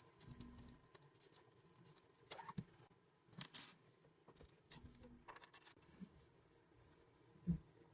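Near silence with scattered faint clicks and light knocks of small objects being handled, and one sharper knock near the end.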